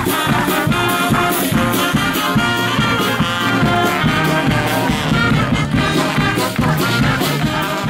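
Brass band music with a steady beat.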